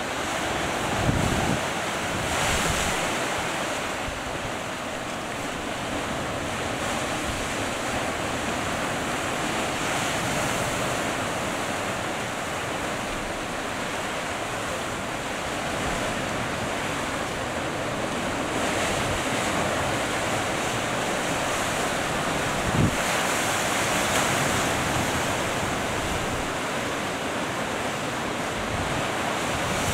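Sea surf washing and breaking over rocks along a rocky shore, rising and easing in slow surges. Wind buffets the microphone a couple of times.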